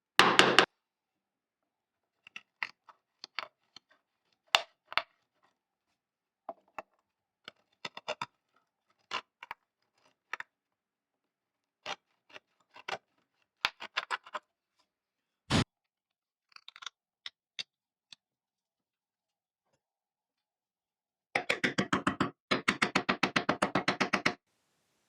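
Hand tools working wood for bow-tie inlays that stop a crack in a dovetailed board: scattered light taps and scrapes, then a quick run of rapid scraping strokes for about three seconds near the end.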